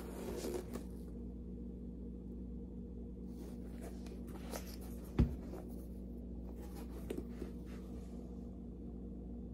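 Faint rustling and scuffing of an Adidas Exhibit A basketball shoe being handled and turned over in the hands, with one sharp knock about five seconds in, over a steady low hum.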